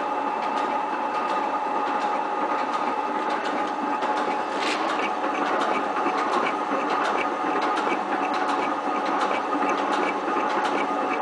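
A 7305T metal shaper (planing machine) running: a steady mechanical whine from its drive and gearing, with regular clicking that grows more distinct about halfway through as the ram works back and forth.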